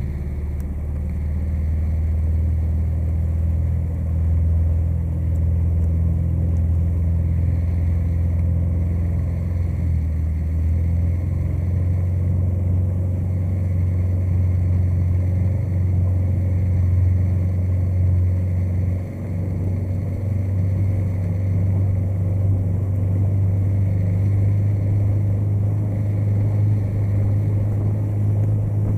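Small motorboat's engine running steadily, heard from on board as a low drone whose pitch rises a little partway through.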